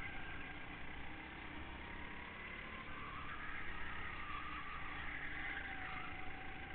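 Go-kart engine heard from on board, its pitch rising and falling with the throttle through the corners, with other karts' engines running around it.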